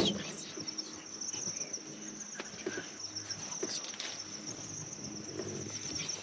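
Insect chorus of crickets or cicadas: a steady, high-pitched chirring trill. A sharp knock comes right at the start, with a few small clicks after it.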